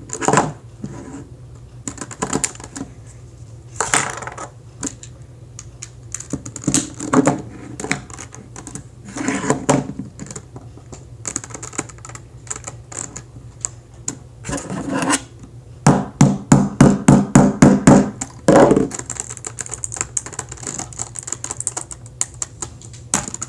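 Hard plastic Rubik's cube pieces clicking and clattering as they are pried out, handled and pressed into place. About two-thirds of the way in there is a quick, loud run of about ten sharp clicks.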